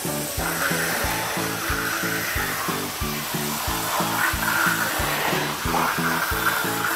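Background music with a steady beat, over the steady hiss of a garden hose spraying water into a foam-filled plastic kiddie pool.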